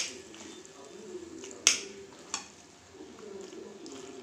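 Three sharp metal clicks of a serving spoon knocking against a steel plate as cooked macaroni is served onto it. The loudest click comes about a second and a half in, and a faint low murmur runs underneath.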